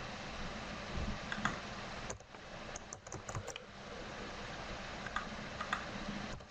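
Scattered computer-keyboard keystrokes and clicks in short clusters, over a steady background hiss.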